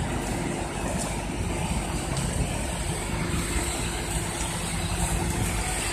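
Honda Brio Amaze small sedan creeping toward the microphone at low speed with its engine running at low revs, giving a steady hum, under irregular wind rumble on the microphone.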